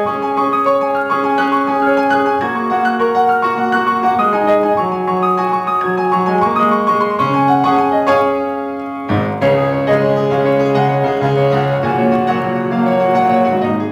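Solo grand piano playing a quick, flowing piece of many running notes. It thins out briefly about eight seconds in, then comes back with a strong, fuller entry deep in the bass.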